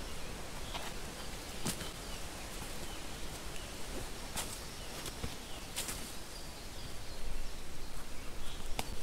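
Scattered short rustles of a folded fabric groundcloth being handled on dry leaf litter, growing busier and louder near the end, over a quiet woodland background with faint bird chirps.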